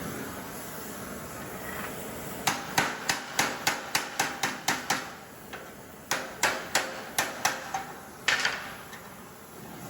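Blacksmith's hammer striking metal on an anvil, with a ringing tone after each blow. The blows come at about three a second: a run of about ten, a short pause, about five more, then a single last blow near the end.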